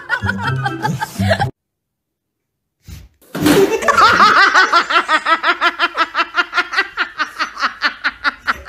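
A song with a beat plays for about a second and a half, then cuts off. After a short silence, a person laughs hard in a long, unbroken run of rhythmic ha-ha-ha pulses, about five a second.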